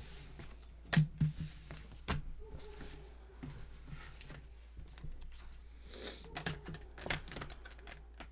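Quiet room with a few soft clicks and knocks, about a second apart early on and again near the end.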